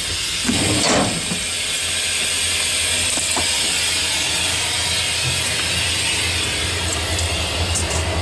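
Diesel locomotive cab noise: a steady hiss over the low drone of the engine, with a few scattered clicks and knocks.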